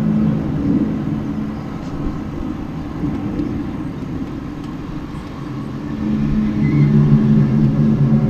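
A low droning hum of unknown source, several steady pitches sounding together over a rumble, fading in the middle and swelling again from about six seconds in. It is one of the unexplained 'strange sounds' heard outside, recurring every ten minutes to half an hour.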